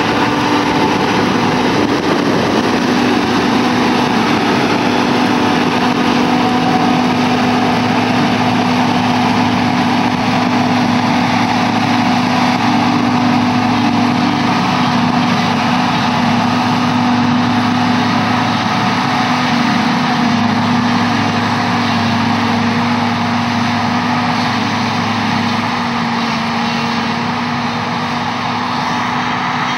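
John Deere self-propelled forage harvester running at working speed, picking up and chopping a swath of wilted grass for haylage, with a steady mechanical hum under a dense wash of noise. The sound eases slightly near the end as the machine works away.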